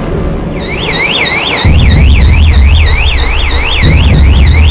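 An electronic warning alarm warbling, its tone sweeping up and down about three times a second, over a deep steady low rumble that comes in suddenly about a second and a half in.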